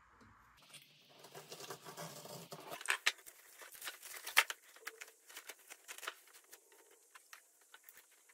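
Saran plastic wrap and tape being cut and peeled off a freshly cured carbon-fiber hockey stick blade, crinkling and tearing in a run of quick irregular crackles. The loudest tearing comes about three to four and a half seconds in.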